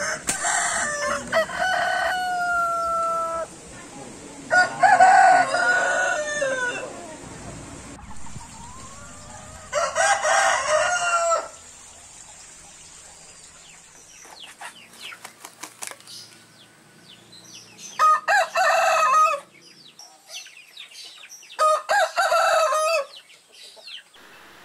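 Rooster crowing: five full cock-a-doodle-doo crows a few seconds apart, the first ending in a long drawn-out note.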